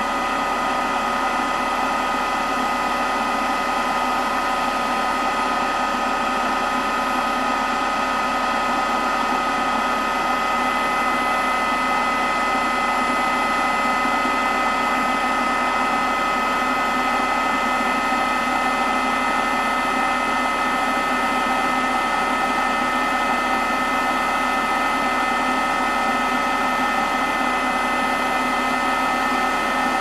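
AEG electric foot spa massager running steadily: an even motor hum with a constant whine over it, unchanging throughout.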